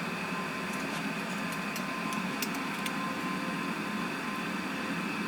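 Steady hum and hiss of room noise with a few faint light clicks about one to three seconds in, as the insulation is stripped from an ESC power wire.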